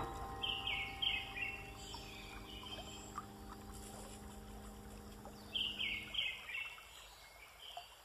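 Soft background music with sustained notes that fade out about six seconds in. Over it, short falling chirping phrases from a bird come twice, near the start and again about five seconds later.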